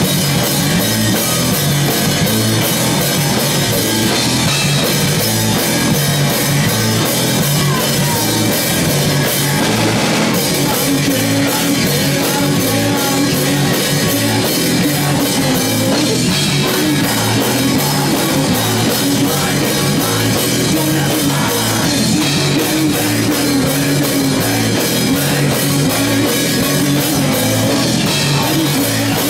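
Live rock band playing loudly with drum kit, guitar and bass, the drums keeping a steady beat.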